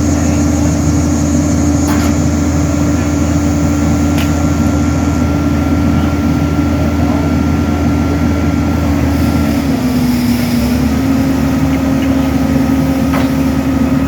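An engine running steadily at a constant speed, its pitch sagging briefly about ten seconds in before settling again, with a few faint clicks over it.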